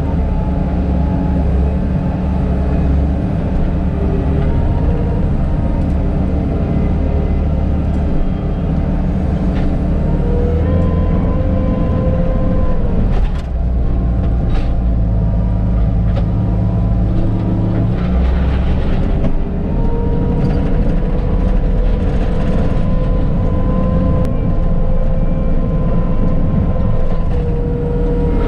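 Bobcat T650 compact track loader's diesel engine running steadily, its pitch dipping and rising a few times, with a few sharp knocks.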